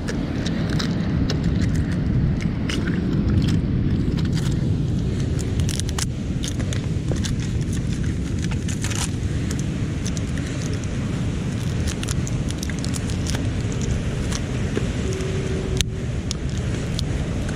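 Mussel shells clicking and crackling as clusters are pried off a rock by gloved hands and dropped into a bucket, in many short irregular clicks over a steady low rumble.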